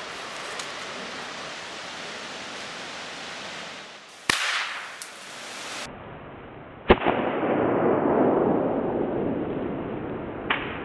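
A tiny flash-powder charge packed inside a candy corn and lit by a cannon fuse goes off with a sharp bang about four seconds in. A second sharp bang follows about three seconds later, as the blast is shown again, trailed by a few seconds of rushing noise.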